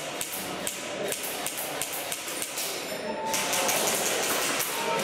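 Airsoft gun firing a run of sharp, uneven clicks and knocks, with a short high beep a little past halfway.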